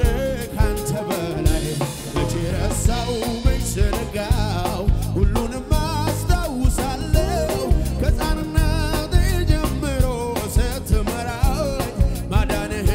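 Live gospel band playing an Amharic worship song (mezmur): a drum kit keeping a steady beat under electric guitars and keyboard, with sung vocals.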